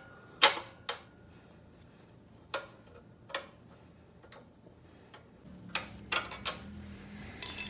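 Wrench clicking and tapping on metal while the exhaust bolts are tightened on a Tillotson 9 hp mini bike engine: a few separate clicks, a quick cluster about six seconds in, then a sharp ringing metal clink at the very end.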